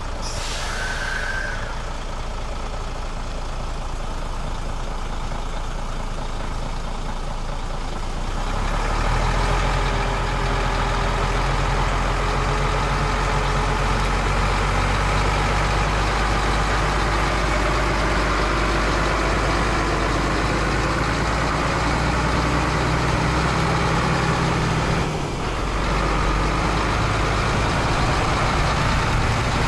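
Mercedes-Benz Actros truck's diesel engine running, growing louder and heavier about eight seconds in, with a short dip in level near the end.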